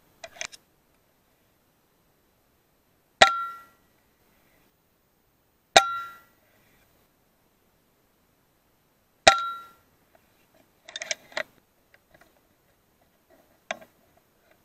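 FX Maverick .22 PCP air rifle firing three shots, each a sharp crack with a brief metallic ring, about two and a half and three and a half seconds apart. Lighter clicks come near the start and again in the last few seconds.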